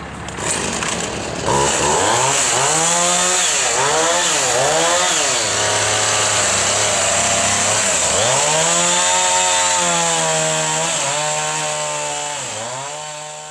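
Husqvarna two-stroke chainsaw catching about a second and a half in and revved up and down several times. It is then held at high revs cutting through a log, with brief dips in pitch, and winds down near the end.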